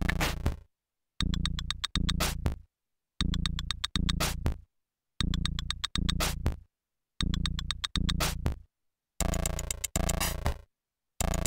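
Electronic beat from a Teenage Engineering Pocket Operator Office (PO-24), a looping synth and drum-machine pattern. It plays in short chopped stabs, two about every two seconds, with dead silence between them and quick downward pitch sweeps. About nine seconds in the pattern turns brighter and busier.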